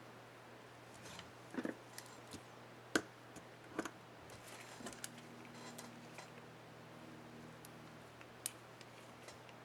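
Scattered small plastic clicks and taps from the Ctrl keycap and its retainer clip on an HP dm4 laptop keyboard being handled and fitted, the sharpest click about three seconds in.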